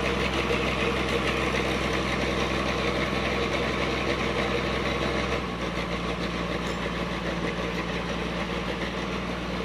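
Engine of a river sand dredge running steadily. Its note shifts slightly about halfway through.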